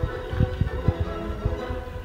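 Background music with long held notes, over a few irregular low thumps.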